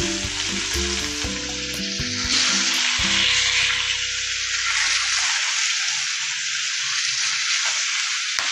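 Whole bata fish frying in hot oil in a nonstick pan: a steady, loud sizzle that swells about two seconds in. Background music with held notes plays under it for the first five seconds.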